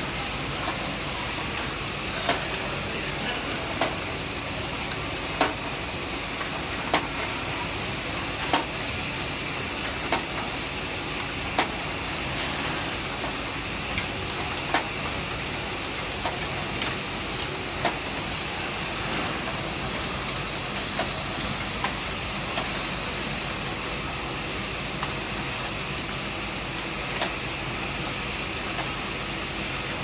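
Automatic 18-head rotary bottle washing machine running: a steady hissing machine noise with sharp clicks about every one and a half seconds as the mechanism turns.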